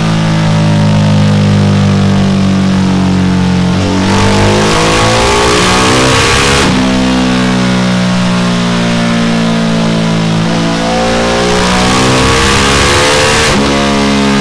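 Ducati Multistrada 1260 S's 1262 cc L-twin running through a Delkevic X-Oval titanium exhaust, held at a steady speed and revved up twice. Each rise in pitch lasts a couple of seconds and drops back sharply.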